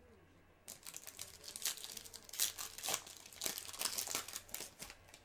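Foil wrapper of a 2014 Bowman Chrome baseball card pack crinkling and tearing as it is opened by hand, starting a little under a second in.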